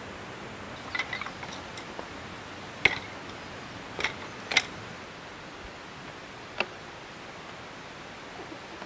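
Steady background hiss with about six sharp clicks and light knocks scattered across several seconds, the loudest about three seconds in and again about four and a half seconds in.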